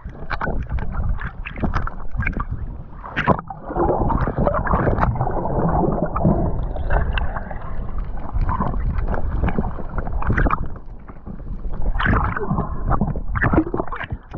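Water sloshing and gurgling around a swimmer at the surface, muffled, broken by irregular knocks and splashes.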